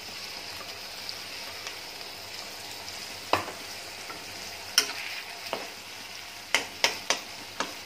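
Onions sizzling steadily in hot oil in a metal wok. From about three seconds in, a metal spatula knocks and scrapes against the wok several times as it stirs.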